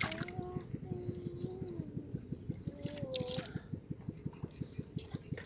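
A hand sloshing and squelching in a muddy, water-filled hole, with water dripping and trickling. A human voice holds a few drawn-out, gliding notes over it.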